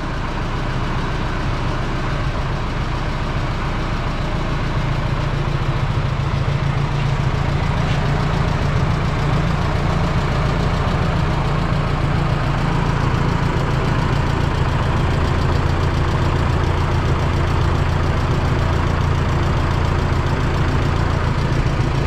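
Oliver Super 44's four-cylinder flathead engine idling steadily.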